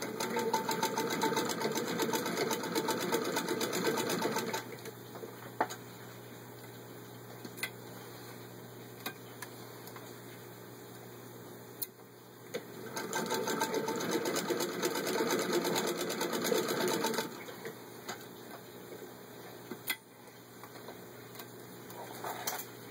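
1913 Singer 66-1 sewing machine, turned by a hand crank, stitching through six layers of denim with a fast, even chatter of needle strokes. It runs in two spells of about four and a half seconds each, separated by a pause of roughly eight seconds that holds a few single clicks.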